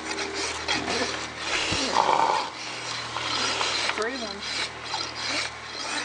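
Hoof rasp filing a horse's hoof wall in repeated, irregular scraping strokes, rolling and rounding the hoof edge to a dull edge.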